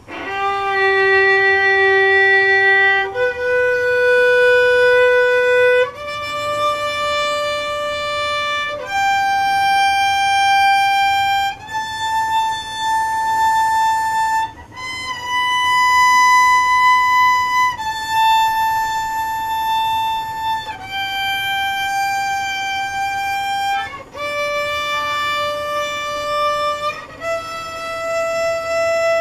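Solo violin playing a tonalization exercise: slow, long bowed notes of about three seconds each, one at a time, stepping up in pitch and then back down. The sustained, even notes are practice for tone and intonation.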